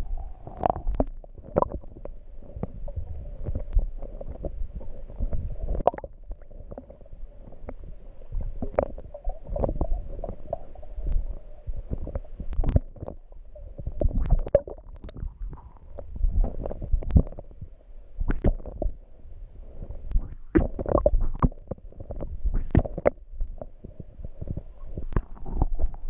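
Muffled underwater sound picked up by a submerged action camera in its waterproof housing: dull water movement with many irregular knocks and thumps.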